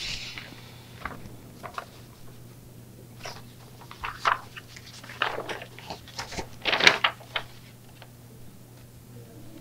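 Sheets of paper and a manila envelope rustling and crinkling as they are handled, in a string of short crisp bursts that are loudest about seven seconds in, over a low steady hum.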